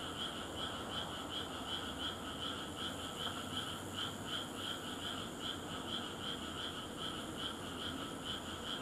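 Frogs calling in a chorus: short high calls repeating evenly, about three a second, with no break.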